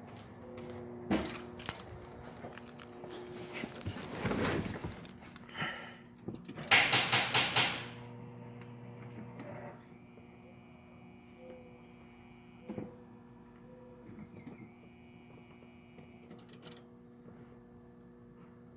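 C6 Corvette start attempt that fails: a burst of rapid clicking from the starter lasts about a second and a half and the engine does not catch, followed by the car's high steady warning chime sounding twice.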